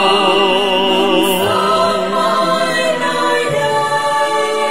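Ballad music: a man's voice holds a long sung note with vibrato over the instrumental backing, and the backing carries on alone in the pause between lines.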